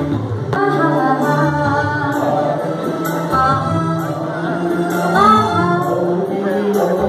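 A woman and a man singing a duet through microphones over musical accompaniment, with sung notes held and bent in a melody.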